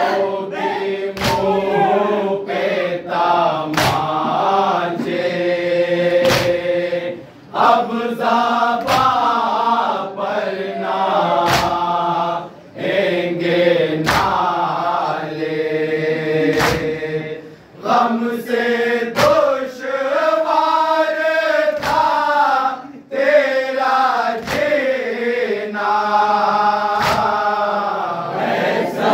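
Men's chorus singing an Urdu noha (Shia mourning lament) without instruments, in long drawn-out phrases. It is punctuated by sharp slaps at a steady interval, hands striking chests in matam and keeping time.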